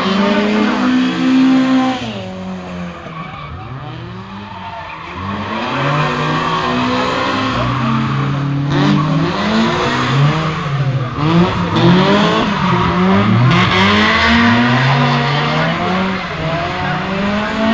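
Toyota Starlet engine revving up and down repeatedly while its tyres squeal through a drift. It is quieter for a few seconds from about two seconds in, then loud again.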